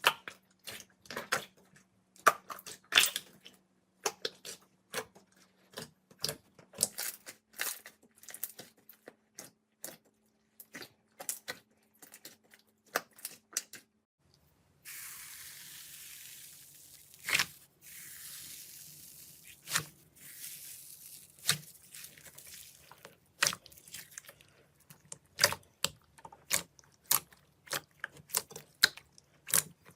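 Slime being squished and poked by hand: rapid, irregular wet clicks, pops and squelches. About halfway through, a steady hiss runs for several seconds under the pops before the clicking picks up again.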